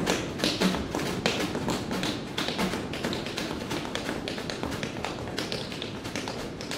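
A solo break of quick, sharp taps and clicks with a few light thuds, several a second in an uneven rhythm, with no band playing.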